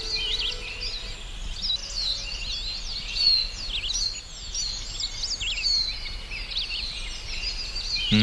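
Small birds chirping and singing, many short overlapping whistled notes rising and falling, over a steady low background noise.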